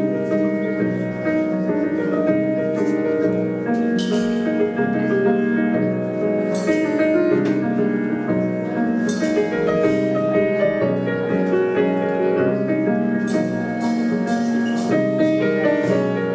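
Small jazz group (grand piano, Gibson ES-175 archtop guitar, double bass and drums) playing a tune, held chords changing under the melody, with a few brief cymbal splashes now and then.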